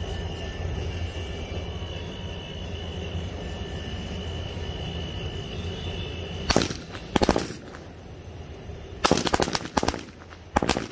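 A string of small firecrackers (a ladi) going off loud, after several seconds of steady low rumble: a bang about six and a half seconds in, a short rattle of bangs a moment later, then a quick cluster of bangs near the end. Only part of the string bursts.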